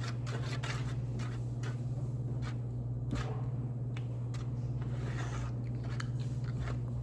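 Scattered small clicks and rustles of craft supplies and containers being handled, over a steady low hum.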